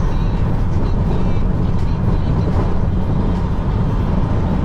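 Steady low road rumble of a car driving at highway speed, heard from inside the cabin: tyre and engine noise.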